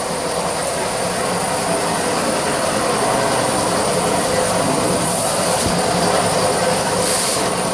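Angle grinder cutting steel, running steadily under load with a harsh, even grinding whine.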